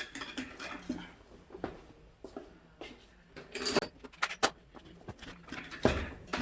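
Scattered metallic clinks and knocks of hand tools and metal parts being handled, a few sharp knocks spaced irregularly with the loudest near the end.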